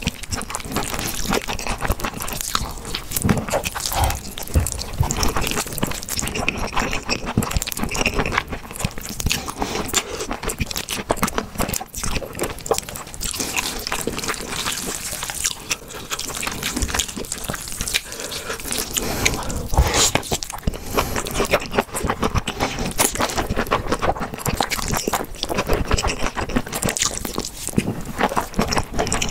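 Close-miked slurping and chewing of thin noodles in thick chili sauce: wet, sticky mouth sounds with many small smacks and clicks.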